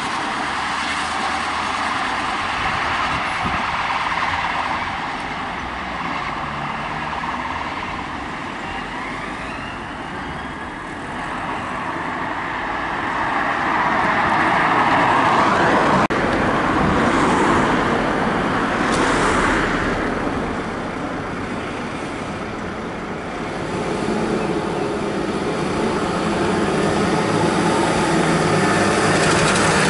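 Emergency vehicles passing on blue lights: police vans and a fire engine, their engine and tyre noise mixed with road traffic and swelling and fading as each goes by, with a siren sweeping faintly at times.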